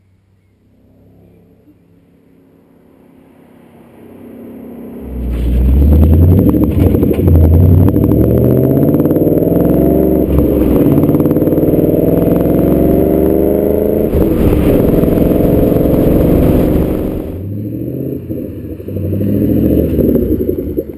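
Ford Mustang GT's 5.0-litre V8 through a Roush aftermarket exhaust: faint at first as the car approaches, then loud under hard acceleration, its note climbing again and again as it goes up through the gears. About three-quarters of the way in it drops back to a quieter, uneven burble off the throttle.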